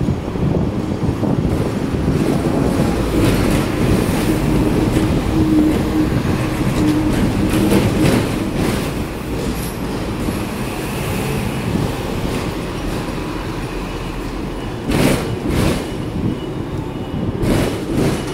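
Hong Kong double-decker electric tram running along street track, heard from on board the upper deck: a steady rumble of steel wheels on the rails, with a humming tone for a few seconds. Three sharp clacks come near the end.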